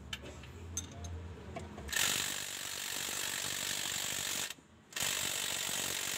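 Ratchet socket wrench clicking rapidly as a transmission-to-engine bolt is spun out: light ticks at first, then a long run of fast clicks starting about two seconds in, a brief pause, and a second run.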